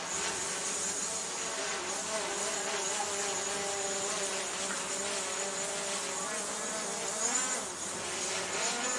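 Steady buzzing drone whose pitch wavers slightly, with a thin high whine above it.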